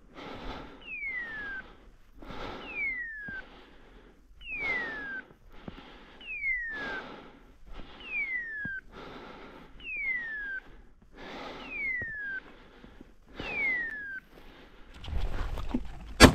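Heavy rhythmic breathing, about one breath every two seconds, each carrying a whistle that falls in pitch. At the very end comes a single sharp, loud bang: a shotgun shot.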